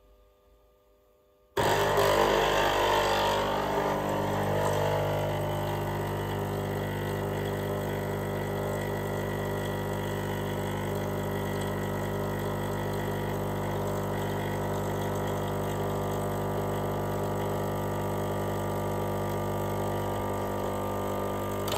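Espresso machine pump switching on about a second and a half in and running with a steady hum while a shot is pulled through a bottomless portafilter, cutting off at the end.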